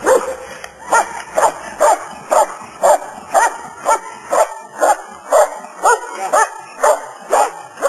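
Dog barking steadily and insistently at a helper in a padded bite sleeve, about two sharp barks a second without a break, as in a schutzhund bark-and-hold.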